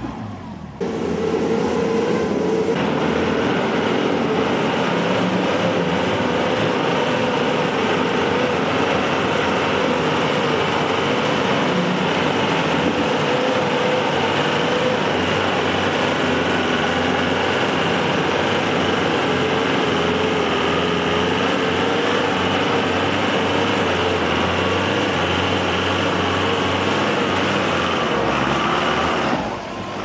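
A motor running steadily under heavy load at a near-constant, slightly wavering pitch. It starts abruptly about a second in and cuts off just before the end.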